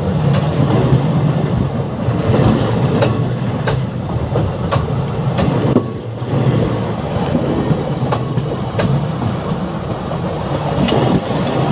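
Indian passenger express train running along the track: a steady rumble with wheels clicking over rail joints every second or so.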